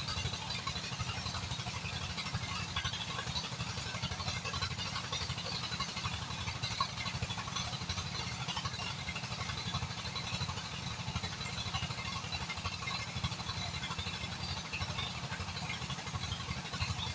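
A small engine running steadily, with a fast low pulsing and an even crackly hiss above it.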